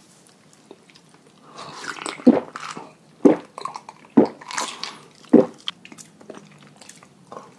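A person eating close to the microphone: chewing and mouth noises, with four louder thumps about a second apart in the middle.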